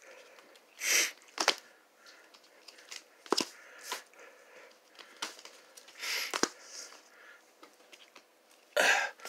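Vinyl LP record jackets, some in shrink-wrap and plastic sleeves, being handled and flipped through one after another: short sliding hisses of cardboard and plastic, with a few sharp clicks as the jacket edges knock together.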